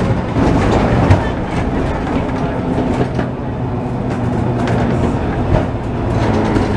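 Historic tram running along its rails, heard from inside the wooden passenger car: a steady rumble of wheels on track with a low hum and scattered clicks and rattles.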